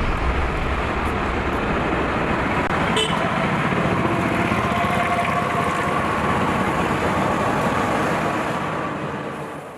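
City road traffic: a steady rush of passing vehicles, with a vehicle horn held for a second or two about halfway through. The sound fades out near the end.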